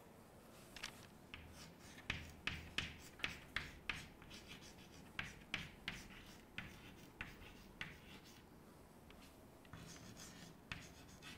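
Chalk writing on a blackboard: a faint, irregular run of short taps and scratches as letters are written, pausing about eight seconds in before a few fainter strokes.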